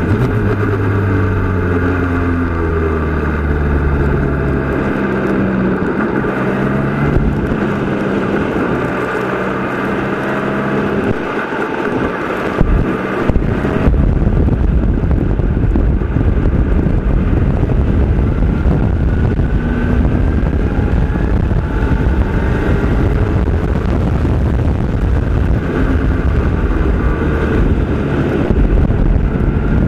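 Formula Renault 2.0 single-seater's four-cylinder engine heard onboard at speed, its revs rising and dropping with the gear changes. From about halfway, a heavy low wind rumble on the microphone covers much of the engine.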